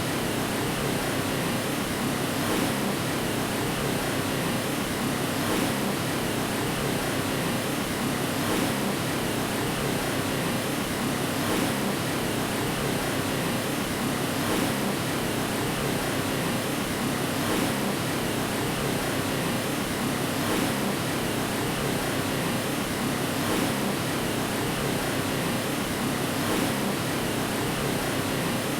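Steady white-noise hiss, a deep, even rush like a fan or air conditioner, with a faint swell about every three seconds.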